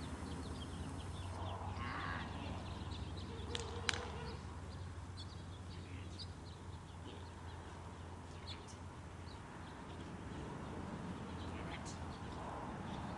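Outdoor ambience: scattered short, high bird chirps over a steady low hum, with a sharp click about four seconds in.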